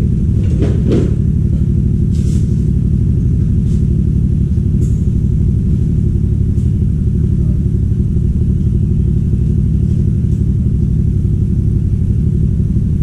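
A steady, loud low machine hum whose pitch does not change, with a few light clicks in the first few seconds.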